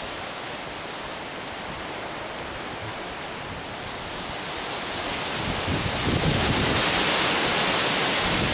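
Steady rushing of wind and water beside open water, swelling louder about halfway through.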